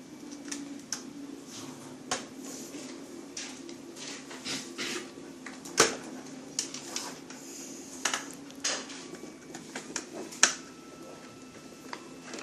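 Irregular clicks and knocks of computer parts being handled and fitted into a desktop PC case, with two sharper knocks about six seconds and ten seconds in, over a faint steady hum.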